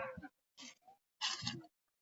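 Spotted doves (derkuku) cooing in short, broken phrases.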